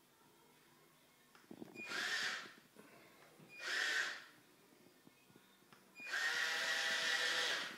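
Small electric drive motors of an Arduino WiFi robot tank whining as it drives, in two short bursts and then a longer run near the end.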